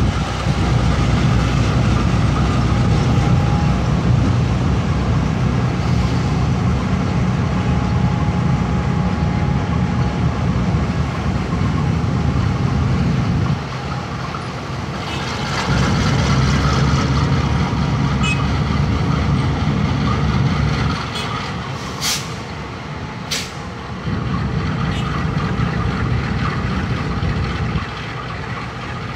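Diesel engine of a CC 201 diesel-electric locomotive running as it shunts a rake of freight wagons: a steady, loud low drone that eases about halfway through, returns, and grows fainter later on as the locomotive draws away. Two brief sharp sounds come about two-thirds of the way in.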